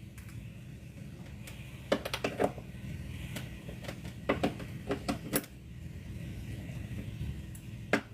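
Three short bursts of sharp clicking and clattering, about two seconds in, around four to five seconds in, and once near the end, as audio cables and gear are handled. A steady low hum runs underneath.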